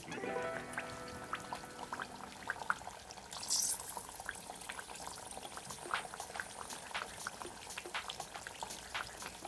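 Cooking oil being poured into a heated frying pan and crackling with many small pops, with a brief louder hiss about three and a half seconds in.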